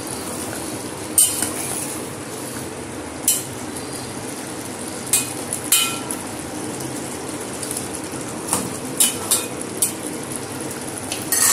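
A steel ladle stirring thick curry gravy in a stainless steel pot, clinking sharply against the pot's side now and then, over a steady low hiss.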